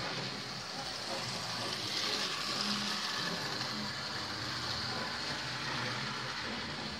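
Model railway trains running round the track: the steady running noise of small electric locomotive motors and metal wheels on the rails.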